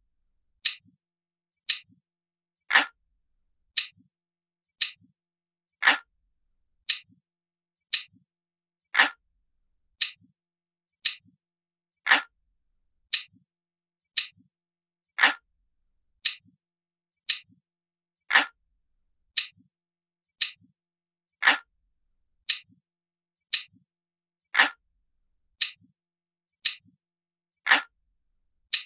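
Crisp, glass-like clock ticking: one short, sharp tick about every second, steady and evenly spaced, with every third tick a little louder.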